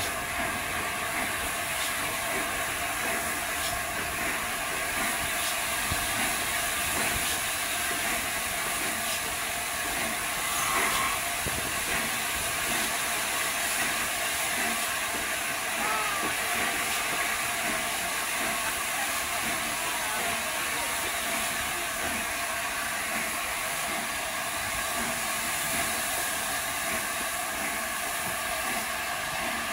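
Steady hiss of steam from LNER A4 Pacific locomotive 60009, heard close beside its boiler as it moves slowly along the line.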